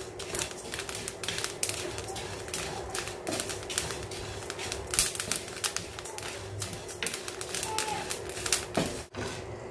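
Soaked and drained matta rice dry-roasting in a pan without oil, the grains crackling and popping in quick, irregular clicks while they are stirred by hand. The popping shows that the water has cooked off and the grains have begun to burst. The crackling thins out after a brief dropout about nine seconds in.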